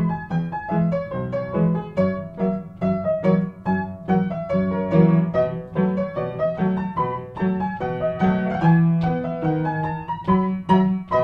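Silent-film style piano accompaniment: a quick melody of struck notes over a steady, repeating bass.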